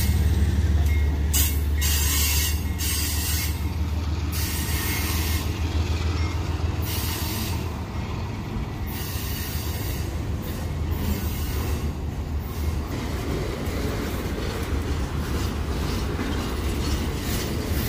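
A diesel-electric freight locomotive's engine rumbles as it passes close and fades over the first couple of seconds. Then double-stack container well cars roll slowly past, their steel wheels rumbling on the rails with recurring squeal.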